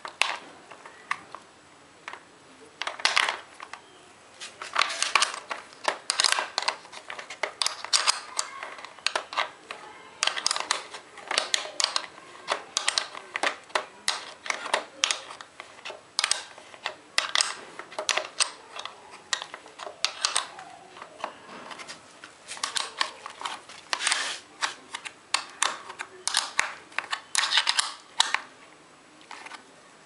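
Hands working inside a Honda CD 70's headlight shell: irregular runs of small clicks, taps and rustles as the wiring and parts are handled, coming in bursts with short pauses between them.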